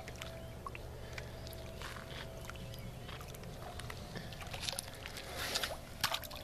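Handling noise around a kayak in shallow water: scattered small knocks and light water sloshing over a steady low hum, with a few short splashing rushes near the end.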